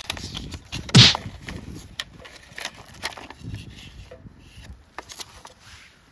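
A paper band being torn and slid off a clear plastic food pack, with crinkling and rustling of paper and plastic and one loud crackle about a second in.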